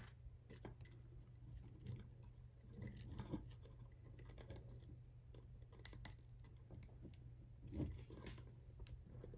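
Faint clicks and scrapes of small plastic parts on a DJI Mavic Air 2 landing-gear leg being handled and prised with a small metal tool, over a low steady hum; a couple of slightly louder clicks come around three and eight seconds in.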